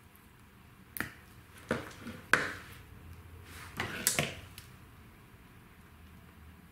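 Pliers squeezing pink insulated crimp connectors onto thin wires at a small plastic plug, with metal and plastic clicks. There are single sharp clicks about one and just under two seconds in, the loudest about two and a half seconds in, and a quick cluster of clicks around four seconds.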